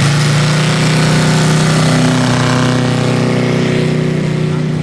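Five-cylinder Valach R5-420 radial engine of a large-scale RC Pilatus SB-2 Pelican model running at takeoff power, holding one steady pitch during the takeoff roll.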